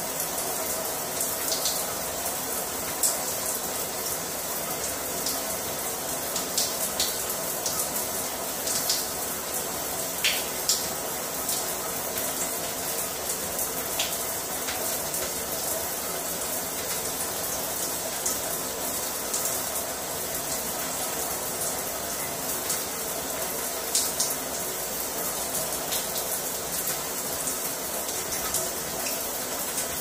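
Shower head running: a steady hiss of water streams falling and splashing, with scattered sharper splashes and drips.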